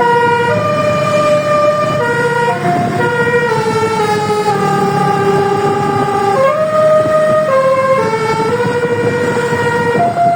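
A bus's 24-trumpet basuri telolet musical air horn playing a tune: held notes that step up and down in pitch every half second to a second and a half, over a steady low rumble.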